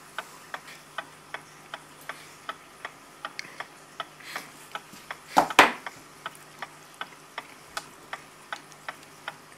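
A vintage German kitchen wall clock's movement ticking steadily on its test stand, a little over two even ticks a second from the escapement. About five and a half seconds in comes one brief, louder handling noise.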